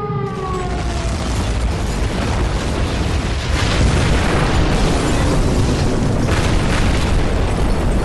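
Sound effect of a falling bomb's whistle sliding down in pitch, overtaken by a long explosion rumble, with heavier blasts about three and a half and six and a half seconds in.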